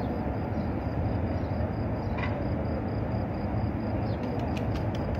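Steady low rumble of wind buffeting the microphone, with a few faint clicks near the end.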